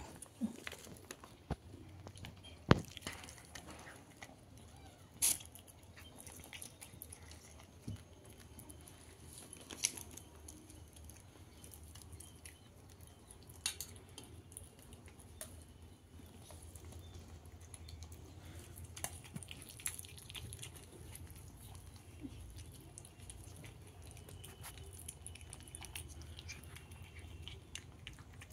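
A cat eating cooked fish off a steel plate: quiet chewing and crunching of the fish, with a few sharp clicks scattered through.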